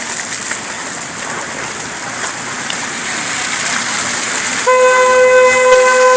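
Street traffic noise, then near the end a vehicle horn sounds one long, steady blast, the loudest thing here.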